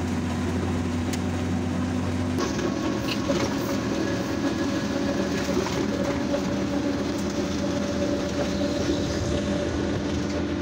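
Motor rickshaw's engine running steadily while driving along a road, with road noise from its open cabin. The engine note shifts about two seconds in.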